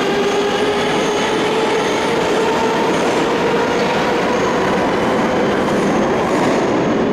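Moscow Metro 81-740/741.1 'Rusich' train pulling out of the station: a loud, steady rolling rumble of wheels on rail, with a motor whine that rises slowly in pitch as the train gathers speed.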